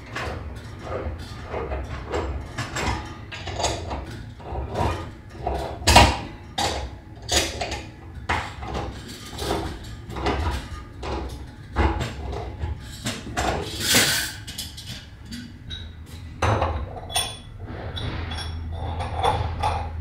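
Irregular metal clinks and knocks of wrenches and threaded pipe fittings being fitted and tightened, as a tee is assembled onto the water heater's gas connection. The loudest clank comes about six seconds in.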